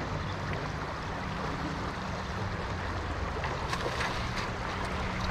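Steady rush of river water, with a few light clicks in the second half.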